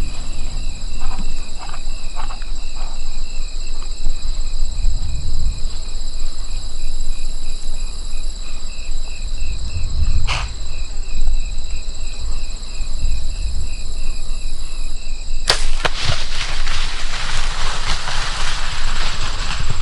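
Wind rumbling on the microphone under a steady, regularly pulsing high chirp. About fifteen and a half seconds in comes a sharp crack, the release of an arrow from a hunting bow, followed by a few seconds of rushing noise.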